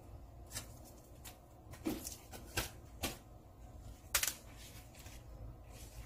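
A few scattered light clicks and rustles of hands handling food and wrappings on a kitchen counter, the sharpest about four seconds in.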